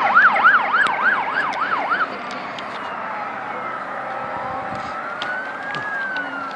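Emergency vehicle siren on a fast yelp, about four sweeps a second, switching about two seconds in to a slow wail that rises and then falls, over steady road noise.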